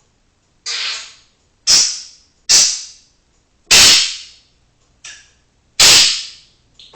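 African grey parrot making a series of five loud, sharp, hissy bursts spaced about a second apart, each fading over about half a second.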